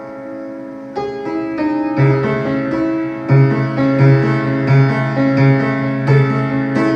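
Solo piano playing. A held chord fades for about a second, then new chords are struck, and from about two seconds in a low bass note is struck again and again, roughly every three-quarters of a second, beneath changing chords.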